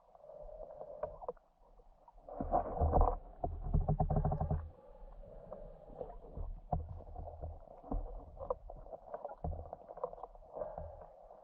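Muffled underwater noise picked up by a GoPro in its waterproof housing: scattered small clicks and knocks, with a louder rumble about two and a half seconds in that lasts about two seconds.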